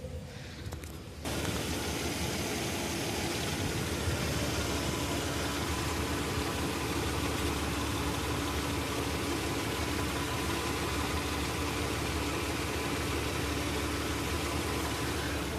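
Mercedes-Benz ML320's V6 engine idling, heard from inside the cabin. About a second in, a loud steady hiss comes on suddenly and covers the engine for the rest of the time.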